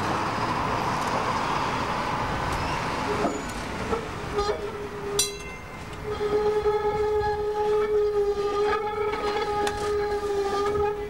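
A-15 class PCC streetcar running through a curve, with an even rolling noise for the first few seconds and a few sharp clicks. From about four seconds in, a long steady tone holds for most of the rest.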